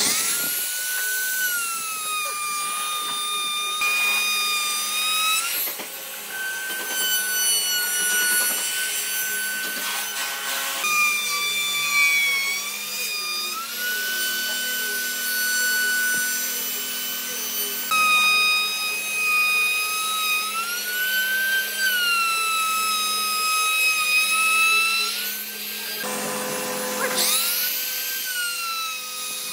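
Makita compact trim router running at high speed while routing flutes along a wooden board, a steady high whine that sags under load and recovers. Its pitch climbs sharply as the motor spins up right at the start and again near the end.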